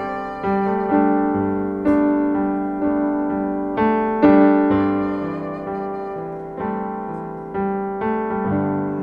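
Piano playing slow sustained chords, a new chord struck about once a second and left to ring and fade, as a song introduction.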